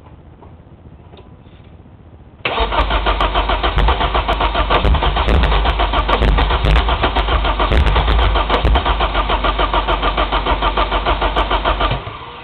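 Nissan S14's four-cylinder engine cranking on the starter in a steady rhythmic churn for about ten seconds, starting about two and a half seconds in and stopping near the end, with occasional sharp splatting pops where cylinders fire. It never catches: it has spark and fuel but won't run, and the plugs come out wet with fuel and carbon.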